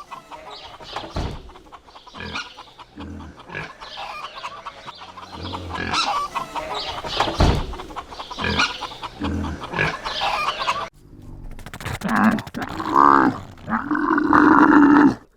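Domestic chickens clucking, many short calls. After a brief break about eleven seconds in come a few longer, louder calls.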